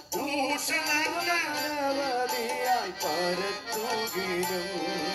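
A Malayalam Christian song being sung over instrumental accompaniment, the voice wavering and gliding between held notes.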